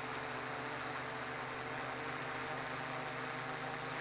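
Steady hiss with a low hum under it, even and unchanging throughout.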